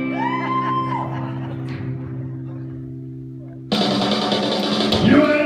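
A live rock and roll band holds a sustained chord while a high note swoops up and back down over it; about three and a half seconds in, drums and cymbals crash in and the full band launches into the up-tempo number.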